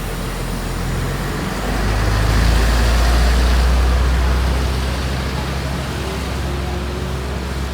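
Large bus engine running with a low steady rumble that swells about two seconds in and eases off again after about four seconds, over a general outdoor hubbub of vehicles.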